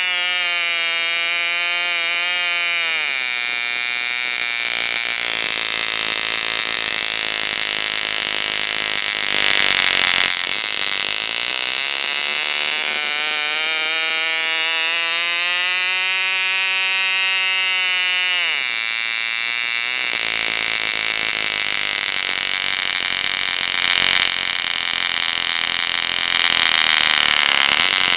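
Unmuffled 1973 Fox 29 two-stroke glow engine turning a 9x6 propeller on a test stand. It runs at full throttle near 11,000 rpm, is throttled down about three seconds in, and is opened up again to full speed. About nineteen seconds in it is throttled back to a lower speed near 5,000 rpm.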